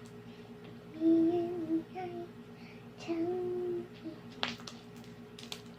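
A child singing a few short notes in two brief phrases, about a second in and again about three seconds in, over a steady low background hum; a couple of faint clicks near the end.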